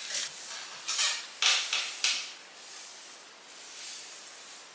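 Long knotless braids swishing and brushing against clothing as they are flipped: four short rustles in the first two seconds or so, then only faint rustling.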